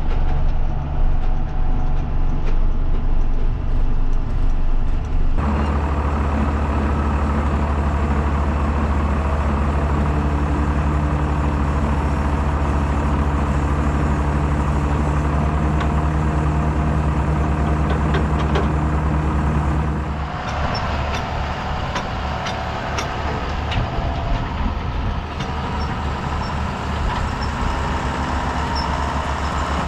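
Heavy diesel engine of farm machinery running steadily under load. The sound shifts suddenly about five seconds in and again about twenty seconds in.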